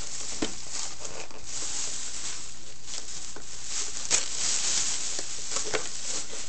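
Thin plastic shopping bag rustling and crinkling as a child's hands rummage in it and pull out wrapped gifts, with a sharper crackle about four seconds in.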